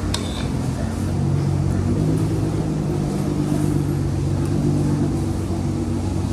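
Nissan GT-R's engine idling with a steady low growl, which strengthens slightly about a second in.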